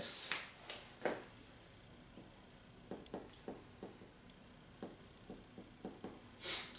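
Felt-tip marker writing on a whiteboard: a string of short, faint stroke sounds as the kanji are drawn, after a few clicks in the first second. A brief soft hiss comes near the end.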